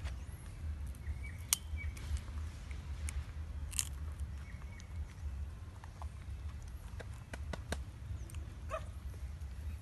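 Young monkey chewing something held to its mouth: faint scattered clicks over a steady low rumble, with a couple of brief high chirps.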